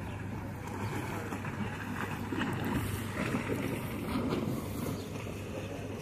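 Wind noise on the microphone over the low wash of a calm sea: a steady, even rumble with no distinct events.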